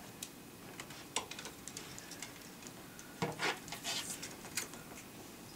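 Wire wand cat toy caught on a wall shelf, clicking and tapping as it is jiggled to work it free, with a denser patch of rattling from about three seconds in.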